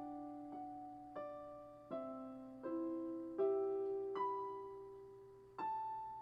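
Slow, gentle solo piano improvisation: single notes and soft chords struck at unhurried intervals, each left to ring and fade, with a long held note in the middle.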